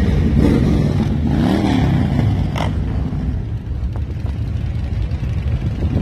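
Loud, steady low rumble of motorcycle engines running in rally street traffic, with a brief rise and fall in pitch early on.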